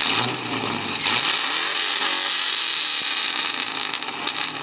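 Chevy Blazer rock crawler's 6-litre LS V8 running through its 2.5-inch stainless exhaust, with a strong steady hiss over it.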